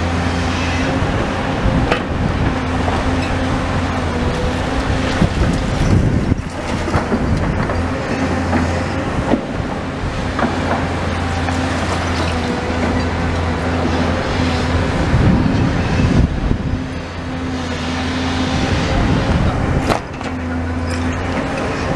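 Tracked demolition excavator's diesel engine running steadily while its sorting grab works through brick rubble, with clattering and knocks of falling bricks and masonry every few seconds.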